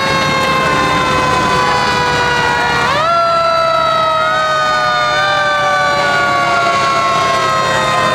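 Fire truck siren wailing: its pitch falls slowly, is swept sharply back up about three seconds in, steps up again a couple of seconds later, then sinks slowly once more.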